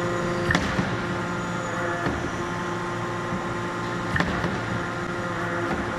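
Fully hydraulic CNC die forging hammer idling with a steady hum, with two sharp clicks, about half a second in and about four seconds in.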